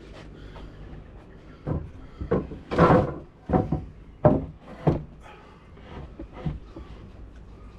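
A series of seven or so irregular wooden knocks and thumps, the loudest and longest about three seconds in: heavy timber slabs being shifted and bumped.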